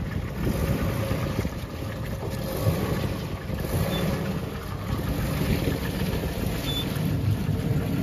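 Jeep Grand Cherokee engine running at low speed as it slowly tows a camping trailer past, a steady low rumble that grows louder toward the end as the vehicle comes close.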